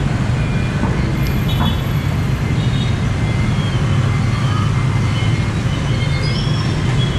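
Steady street traffic rumble, with short faint high tones scattered through it.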